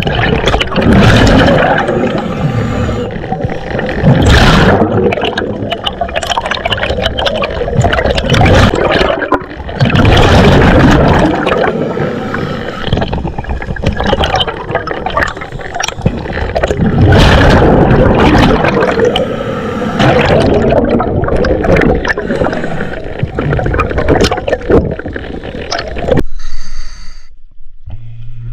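Water gurgling and rushing over an underwater camera as a diver swims, swelling and easing every few seconds. It drops away sharply near the end.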